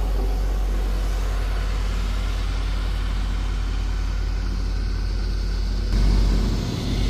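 Heavy diesel engine of a motor grader running steadily under load. A louder, lower rumble comes in suddenly about six seconds in.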